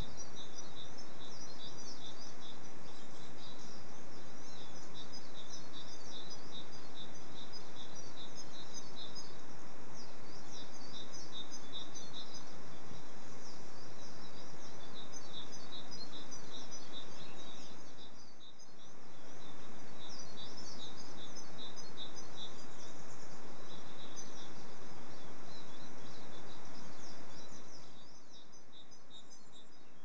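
Eurasian siskins twittering at a seed feeder: a dense run of rapid, high chirps over a steady background hiss. The calls thin out and fall away near the end.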